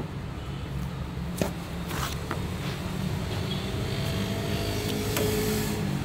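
Steady low rumble of passing road traffic, with a few sharp clicks from a knife against the jackfruit and wooden chopping board. The loudest click comes about a second and a half in.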